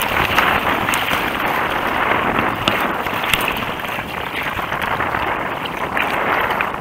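Choppy waves slapping and splashing against a kayak's bow, with spray crackling onto the camera, over a steady rush of strong wind on the microphone.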